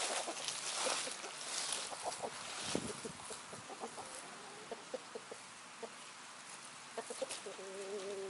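Free-ranging hens clucking in short scattered notes, with rustling and scratching in dry fallen leaves in the first few seconds; near the end one bird holds a steady, longer note for about a second.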